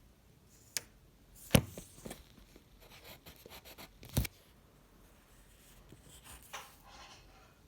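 Edible imitation tissue paper crinkling and crunching as it is handled and eaten: a run of sharp crackles, the loudest about one and a half seconds in, with stretches of finer crackling between.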